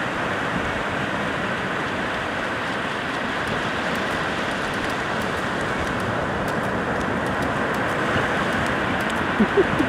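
Steady rushing of surf washing in over flat sand, mixed with wind on the microphone. A few short sharp sounds break in near the end.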